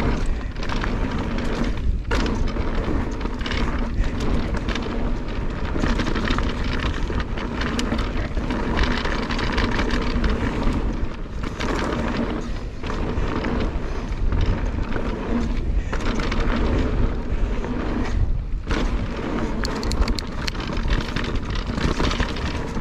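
Mountain bike tyres rumbling and crunching over a gravel and dirt trail at speed, with wind buffeting the action-camera microphone.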